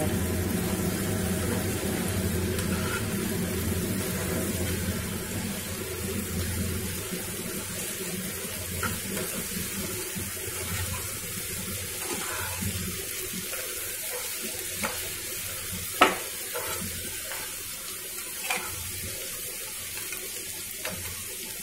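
Garlic chicken pieces and onions sizzling in oil in a non-stick frying pan over a medium gas flame, a steady hiss, while a metal spatula stirs them and now and then scrapes or taps against the pan, with the sharpest tap about two-thirds of the way through.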